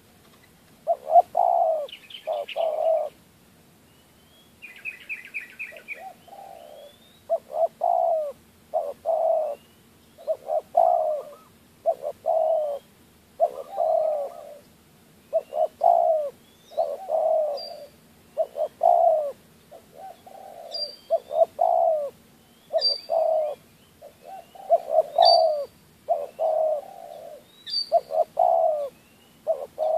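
Spotted dove cooing, its low coo phrases repeating about once a second without a break. Faint high chirps and whistles of small birds sound above it, growing sharper near the end.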